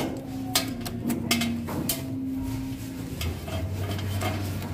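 Plastic clicks and knocks from orange flexible electrical conduit being handled and fitted at a plastic junction box in a ceiling, busiest in the first two seconds, over a steady low hum.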